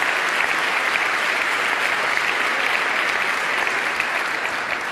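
Large audience applauding steadily, tapering off slightly near the end.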